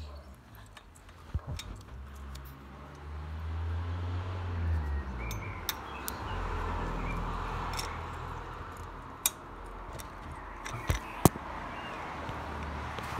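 Scattered sharp metallic clicks and clinks of a spanner and tools at the valve adjuster of a pitbike engine's cylinder head, over a rustling handling noise. The loudest are two clicks close together near the end.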